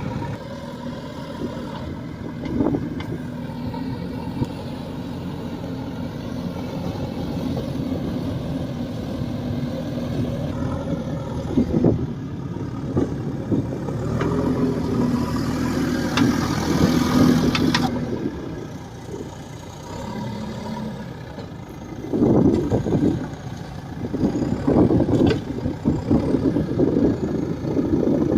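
JCB 3DX backhoe loader's diesel engine running, working harder at times, with a hissy stretch past the middle and louder, rougher bursts near the end.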